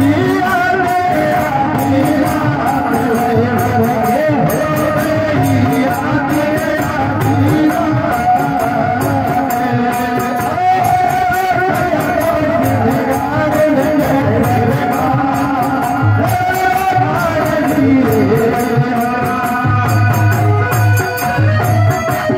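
Folk music: a wavering melodic line over a repeating drum beat, with rattling percussion shaking throughout.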